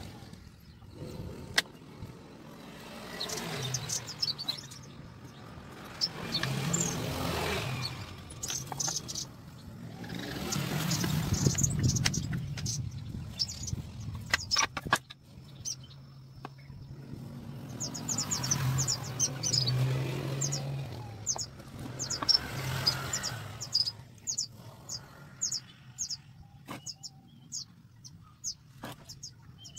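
Road vehicles passing by, several times, each one swelling up and fading away over a few seconds. Birds chirp in quick high notes throughout, thickest near the end, and a few sharp knocks come from small wooden pieces being handled.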